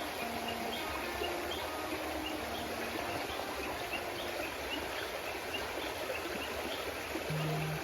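Small creek babbling and trickling steadily, with a faint high chirp repeating about twice a second over it.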